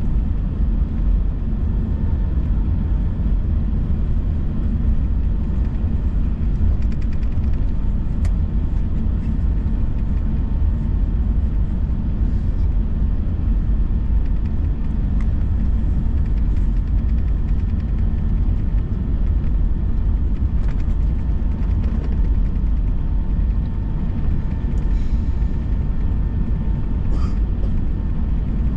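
Steady low rumble of an Airbus A321 cabin on the ground, with a faint steady high whine over it.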